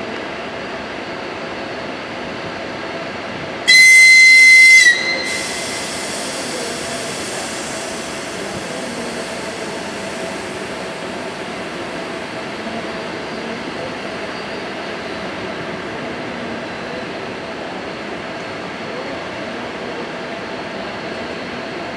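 ChS4 electric locomotive giving one shrill whistle blast, a little over a second long, about four seconds in: the departure signal. Underneath is the steady hum of the standing locomotive's running machinery.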